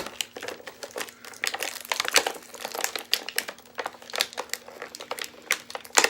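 Plastic toy packaging crinkling and crackling as it is handled and opened by hand, a dense run of small crackles and clicks.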